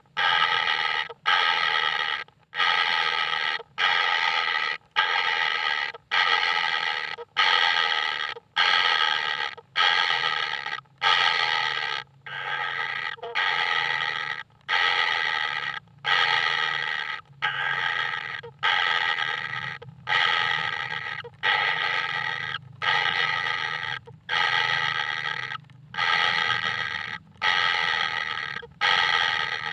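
Kingfisher chick giving harsh, buzzy begging calls over and over, each call about a second long, about one every second and a quarter.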